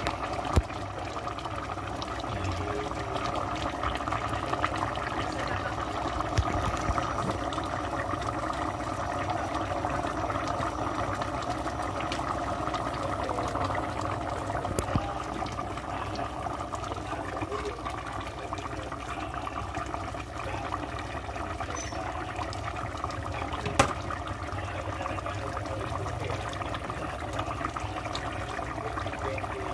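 Coconut-milk stew of papaya bubbling at a steady boil in a metal pot on a gas stove. Two sharp clicks stand out, one just after the start and one late on.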